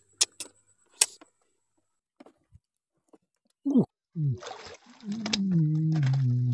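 A few sharp clicks, then a person's voice in two short falling sounds and a long drawn-out sound that steps down in pitch.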